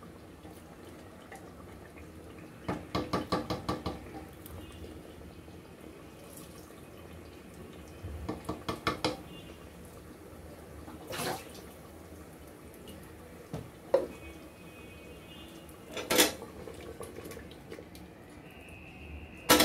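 Wooden spatula stirring a thick curry in an aluminium pressure cooker, knocking against the pot's side and bottom. Two spells of quick rhythmic knocks, about six a second, then a few single knocks, the last one sharp near the end.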